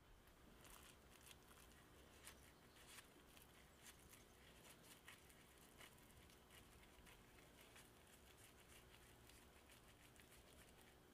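Faint, irregular soft squishes and small clicks of a hand in a disposable plastic glove scooping and squeezing raw minced-chicken kofta mixture in a glass bowl, shaping it into a ball.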